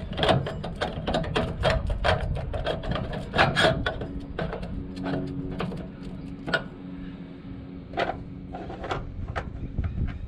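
A rapid run of sharp mechanical clicks and knocks, thinning out after about four seconds, when a steady low hum begins.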